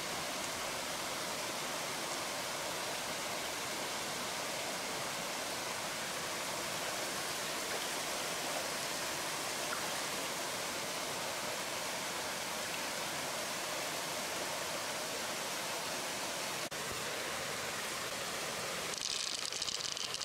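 Steady rush of flowing river water. Near the end comes a short run of light clicks as pearls are dropped onto a mussel shell.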